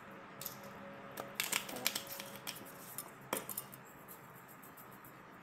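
Small clicks and light clatter of a spice bottle being handled and its cap opened over a bowl of chicken, as a seasoning is added to a marinade: a scatter of sharp ticks, with the loudest click about three seconds in.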